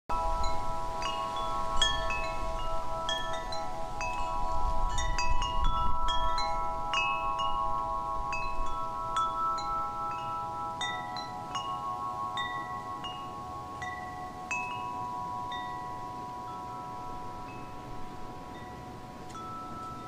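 Chimes ringing: scattered struck metallic notes ringing on over one another above a few held tones, gradually growing quieter toward the end.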